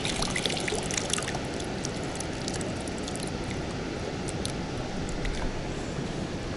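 Water sloshing and dribbling out of a plastic bottle of live bait fish as it is tipped to get one out, with scattered light drips and ticks over a steady background hiss.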